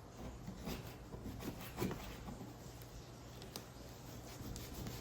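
Faint handling noises of a cardboard product box being opened: soft rubbing and scattered light taps, with one louder knock about two seconds in.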